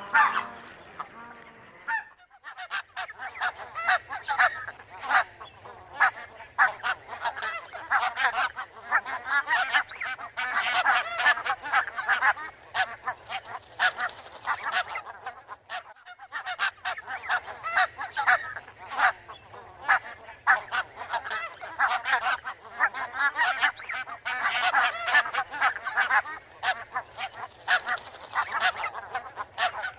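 Flock of barnacle geese calling: many short honks overlapping thickly, picking up a couple of seconds in, with a brief lull about halfway through.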